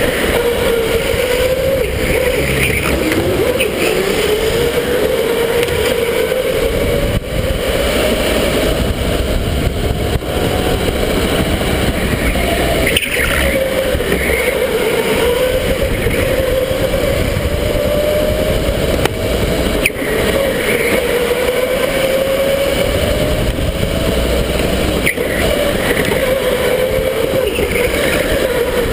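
Electric go-kart motor whining as the kart laps, its pitch climbing slowly with speed and dropping back several times, over a steady low rumble.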